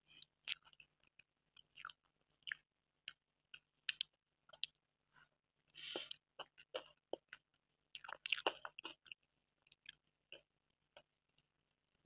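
Faint, close-miked chewing of a mouthful of soft butterscotch cream cake, with scattered small wet mouth clicks.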